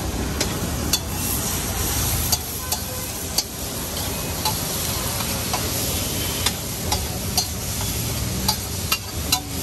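A metal spatula scrapes and taps on a large flat griddle (tawa) as chopped onions and tomatoes are stirred and spread, over a steady sizzle. Sharp clicks of the spatula striking the griddle come irregularly, about every half second to a second, and a low rumble fades after about two seconds.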